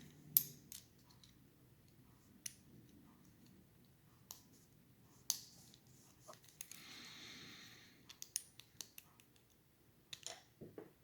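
Scattered small clicks and taps of a lock cylinder and small tools being handled while the lock is taken apart, with a brief scraping hiss about seven seconds in.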